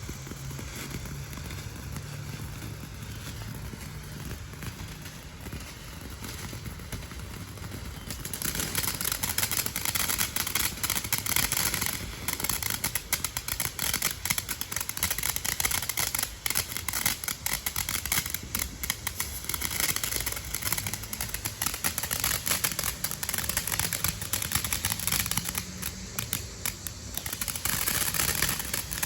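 A lit 'Cool Cat' consumer firework going off: after a few quieter seconds of low hum, it breaks into a dense, rapid crackling spray about eight seconds in and keeps crackling, with brief lulls, to the end.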